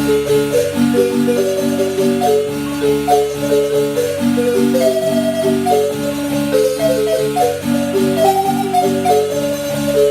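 Marimba music: a quick melody of mallet-struck notes over a repeating bass and chord pattern, many notes held as sustained rolls.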